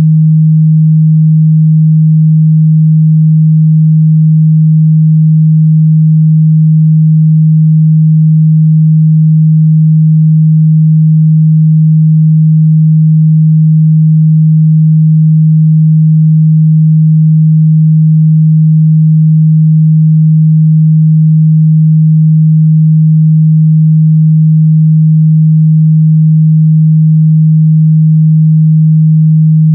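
Steady, loud 157 Hz sine-wave test tone, a single constant low hum with no change in pitch or level, used to check a speaker's or headphone's mid-bass response.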